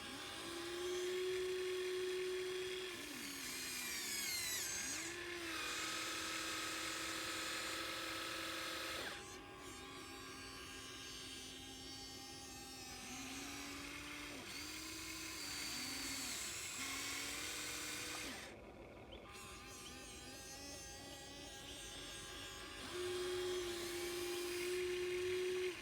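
Whine of the small electric motors of a radio-controlled toy excavator, starting and stopping and shifting in pitch as the arm and bucket move. The whine changes abruptly about 9 seconds in and again about 19 seconds in.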